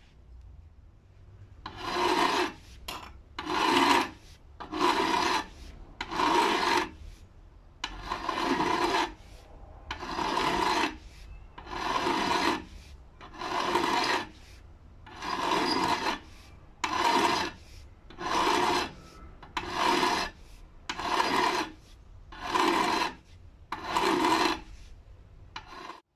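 A hand file being stroked across the steel jaws of old wire cutters held in a vise. About fifteen even filing strokes come one after another, roughly one every second and a half, with short pauses between them.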